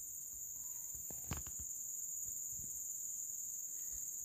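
Insects droning steadily at a high pitch in dense tropical forest, with a faint knock about a second in.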